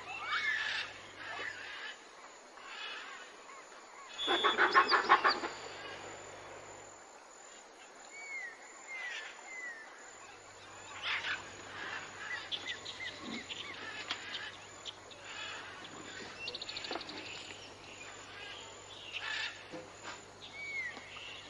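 Jungle-style nature ambience: birds chirping with short down-curving calls, broken about four seconds in by a loud, rapidly pulsing animal call lasting a couple of seconds.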